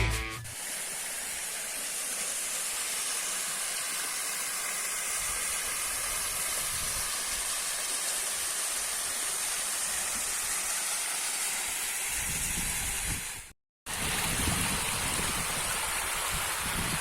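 Waterfall: a steady rush of falling water. It breaks off for a moment about three-quarters of the way through, and a low rumble joins it near the end.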